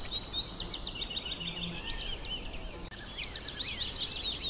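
Small birds chirping: a dense, continuous stream of short, high chirps over a low, steady hiss.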